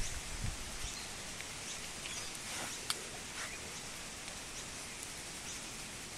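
Faint rustling and scuffling of a hand rubbing and wrestling with a red-necked wallaby's face and fur, over a steady background hiss, with a sharp click about three seconds in.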